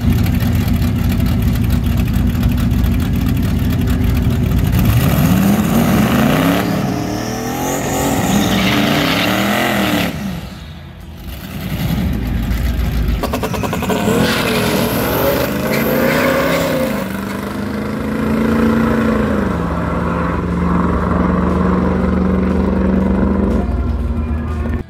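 Drag-racing cars, a red Ford Mustang and a T-bucket hot rod, revving their engines through burnouts at the starting line. The engine pitch sweeps up and down several times and drops briefly about ten seconds in. It then holds one steady pitch for several seconds and stops near the end.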